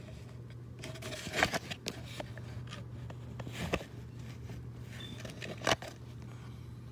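Hands handling thin wires and a small plastic quick-disconnect connector for a speaker: a few short clicks and rustles over a steady low hum.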